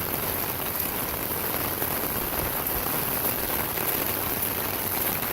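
Heavy rain falling steadily, an even, dense hiss of drops.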